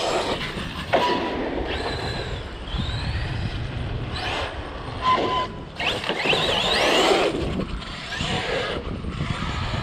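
Brushless electric RC car running hard, its motor whine rising in pitch as it speeds up over tyre and ground noise, with a sharp knock about a second in and another around five seconds.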